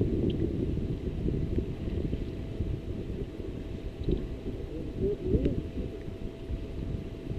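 Wind buffeting the microphone on an open bass boat: a fluttering low rumble, with a faint steady hum underneath and a few light ticks.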